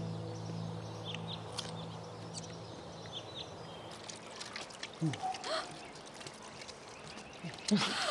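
Water trickling and splashing at a row of outdoor washstand taps as people wash, with a few short gasps from them about five seconds in and again near the end. Background music fades out during the first few seconds.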